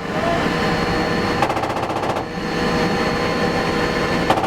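M242 Bushmaster 25 mm chain gun on an M2 Bradley firing two short bursts: one about a second and a half in, lasting under a second, and another starting near the end. A steady vehicle engine runs underneath.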